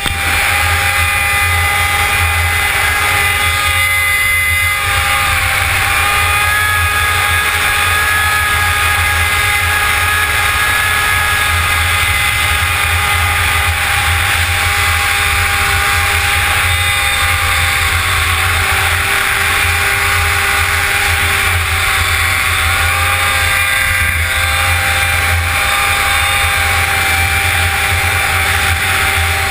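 Yamaha SX-R 700 snowmobile's three-cylinder two-stroke engine running at a steady cruise, its pitch easing off and picking up slightly a few times, over a steady low rumble.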